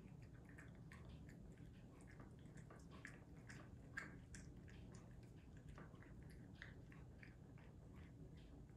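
A cat eating wet canned turkey: faint, irregular wet chewing and smacking, several small clicks a second, with one sharper click about four seconds in.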